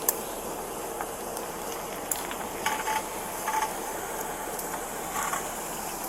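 A steady hiss with a few sharp clicks and several brief scraping or rustling sounds, the last of them about a second before the end.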